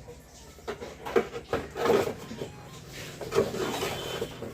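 Handling of cardboard packaging and accessories from a headphone box: several short rustles and light knocks.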